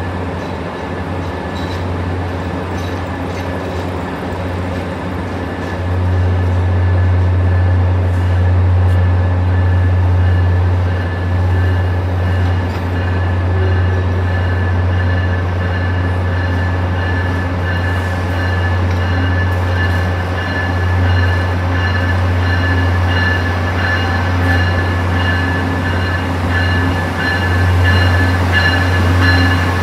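Amtrak passenger train of private railcars rolling slowly along a station platform, with a steady low hum and thin high-pitched whines over it. The sound gets louder about six seconds in as the cars come alongside.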